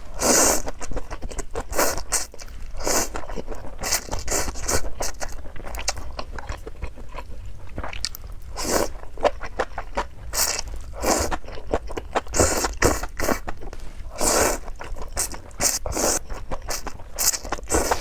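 A person eating: repeated bites and chewing, with louder bursts every second or two and quicker small clicks of chewing in between.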